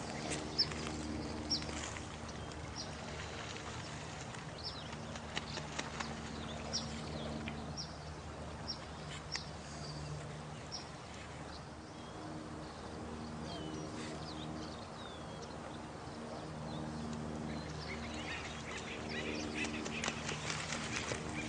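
Night nature ambience: running water under low drawn-out animal calls that hold for several seconds at a time, with short high chirps scattered throughout.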